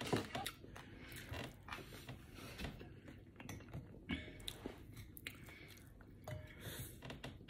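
Faint sounds of a person chewing a mouthful of food, with scattered small clicks as chopsticks pick at rice in a bowl.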